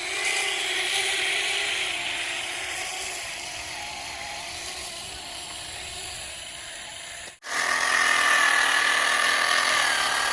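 Small electric motor whirring in two passages. The first fades slowly over about seven seconds; after a sudden break, a louder stretch follows with a steady whine.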